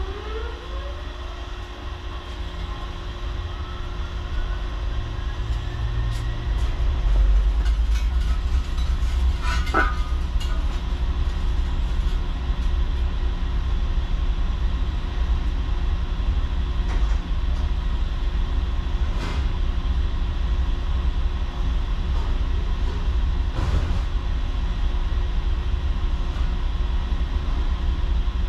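Shot blast cabinet machine's motors spinning up with a rising whine, the low rumble growing louder for the first several seconds and then running steadily, with a few light clicks.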